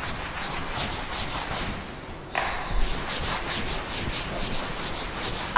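Duster wiping a classroom board in quick, even back-and-forth strokes, about five a second, with a brief pause about two seconds in: the board being cleared.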